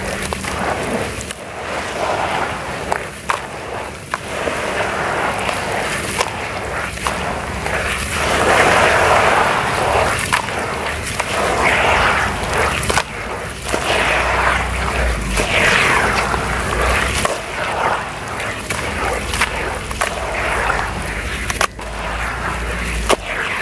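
Hands squeezing and kneading a thick wet mud slurry in a plastic tub: wet squelching and sloshing in repeated surges, about one every second or two, with occasional sharp clicks.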